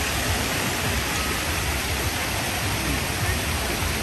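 Steady rush of water pouring from water slides into a shallow splash pool, with faint voices in the background.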